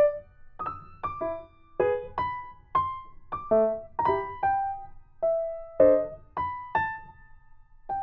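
Background music: a slow keyboard melody played one note at a time, each note struck and fading, a little under two notes a second.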